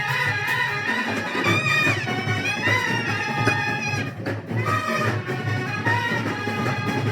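Band music: a melody played on wind instruments over a steady low accompaniment.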